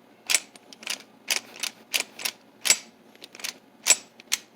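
A dozen or so sharp metallic clicks at uneven spacing as the parts of a mortise lock are handled and worked.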